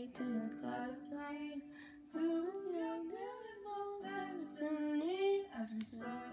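A song: a high, girlish voice singing a melody over held instrumental backing notes.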